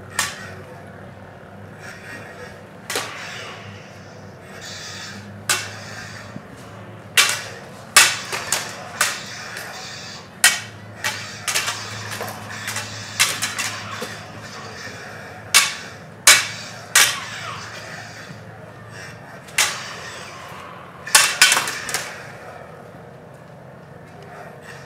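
Lightsaber blades clacking against each other in sparring: irregular sharp strikes, several in quick flurries, thinning out near the end.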